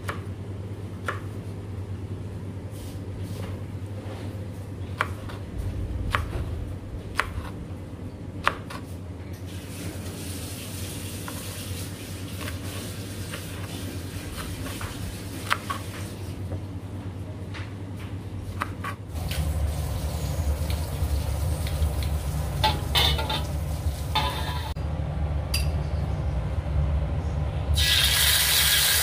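Metal utensils clinking against pots and dishes over a steady low hum that grows louder about two-thirds of the way through, with water pouring for a few seconds around the middle. Near the end a loud frying sizzle starts as food goes into hot oil.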